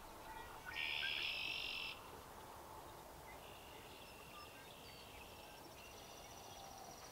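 Insects calling in high, buzzy trills, each about a second long: a loud one about a second in, fainter ones in the middle and a thin, higher one near the end, over a low background hiss.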